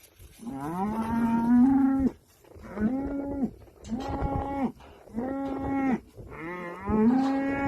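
Cattle mooing: five calls in a row, each about a second long and held at a steady pitch, the first rising into its note and the last one the longest.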